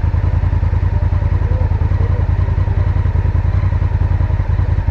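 Motorcycle engine idling steadily just after being started, a fast, even pulsing throb.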